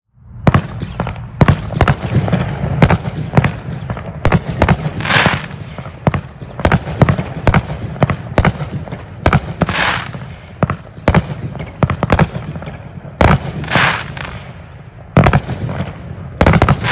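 A 200-gram, 16-shot consumer firework cake firing: an irregular, rapid series of sharp bangs from shots launching and bursting, roughly one or two a second, several followed by a brief hiss as the stars spread.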